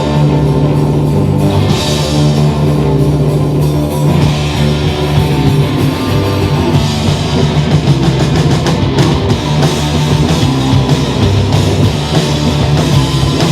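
A three-piece rock band of guitar, bass and drum kit playing loud heavy rock, dense and steady throughout.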